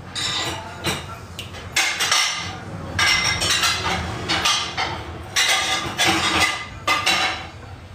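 Pots, pans and dishes clattering and clinking as they are moved about by hand, in a run of irregular knocks and clinks.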